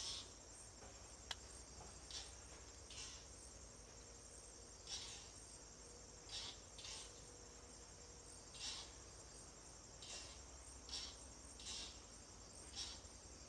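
Quiet outdoor insect chorus: a steady high-pitched crickets' hum, with short chirps at irregular intervals about every second and a faint click about a second in.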